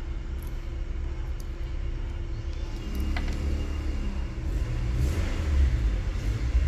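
Steady low rumble like a motor vehicle running nearby, with one light click about three seconds in.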